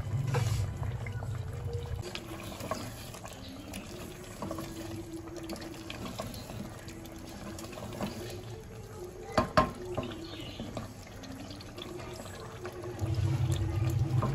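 Mutton and yogurt gravy bubbling and sizzling in an aluminium pot as it is fried down, with a wooden spoon stirring and scraping through it. There are small clicks throughout and two sharp knocks about nine and a half seconds in. A low hum fades out about two seconds in and comes back near the end.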